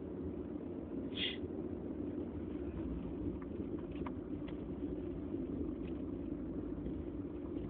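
A person sniffing once, briefly, about a second in, during a pause in an allergy sneezing fit. Under it runs a steady low rumble of background noise, with a few faint ticks.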